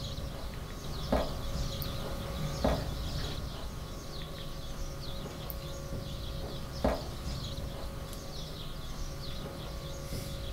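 Small birds chirping continuously over a steady low hum, with three short sharp knocks at uneven intervals, about a second in, near three seconds and near seven seconds.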